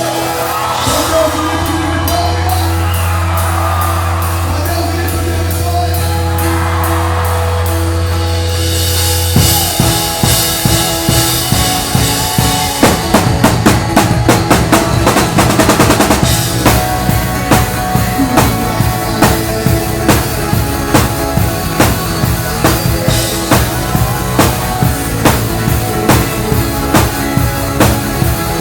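Live worship band music with a drum kit. For about the first nine seconds a held bass note and sustained keyboard chords carry the song, then the drums come in hard, with a busy run of hits and then a steady kick-and-snare beat.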